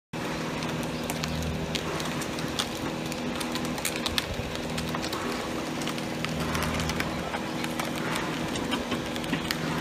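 Engine of a portable motor pump running steadily, a low even drone with a slight pulsing, with scattered light clicks and knocks over it.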